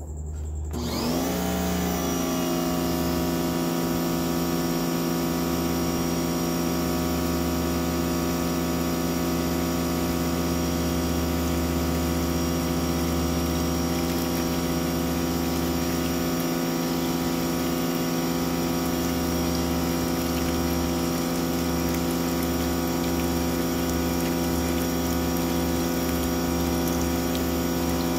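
Sun Joe SPX3000 electric pressure washer starting up, its motor and pump rising to speed over about the first second and then running steadily, driving a sewer jetter hose into a clogged drain line. Water pours from the drain opening and splashes into a plastic tub.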